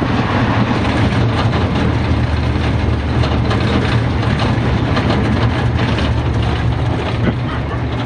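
Pickup-truck taxi (songthaew) driving along a road, heard from its open-sided rear passenger bed: a steady low engine hum under constant road and wind noise.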